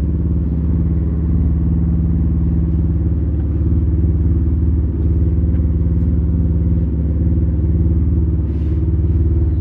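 An engine running steadily, a low even drone with a fast regular pulse that holds the same pitch throughout.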